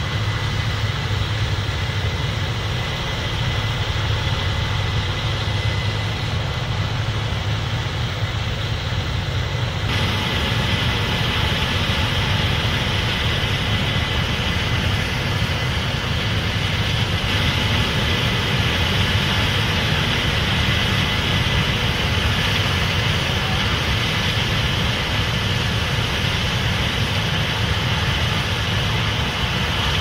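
Case IH 8250 combine running steadily under load as it harvests corn and unloads grain through its auger into a grain cart, with the tractor pulling the cart alongside. A low engine drone carries throughout, and a hiss in the upper range gets louder about ten seconds in.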